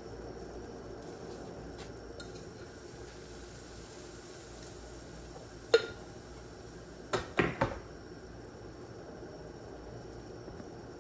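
Metal kitchen utensils clinking against a cooking pot: one sharp knock about halfway through, then a quick run of three clinks a second and a half later, over a steady low background noise.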